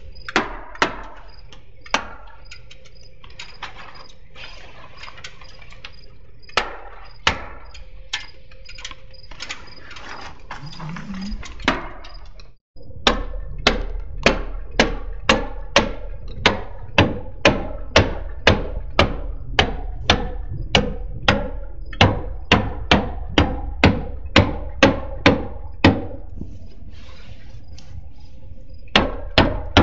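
Hammer stapler driving staples through house wrap into the wall sheathing: sharp whacks, a few scattered ones at first, then about halfway through a steady run of about two strikes a second, pausing briefly near the end before a few more.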